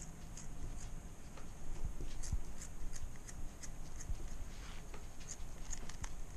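Scissors cutting through cheesecloth: a scattering of short, irregular snips and blade clicks over a steady low hum.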